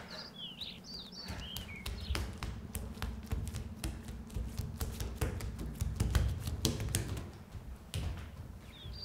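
Bare feet slapping and padding quickly on a hard tiled floor, a string of irregular taps and dull thumps.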